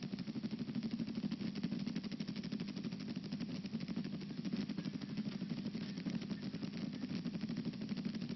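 An engine running steadily at idle, with a rapid, even pulse.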